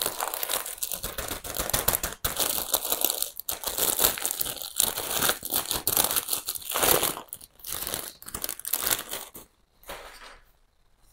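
Clear plastic plant sleeve crinkling and rustling as it is pulled off a potted plant, dying away about a second and a half before the end.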